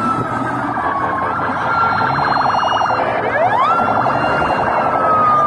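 Police car sirens, more than one at once: wailing tones that sweep up, hold and sink slowly, with a fast warbling stretch about two seconds in.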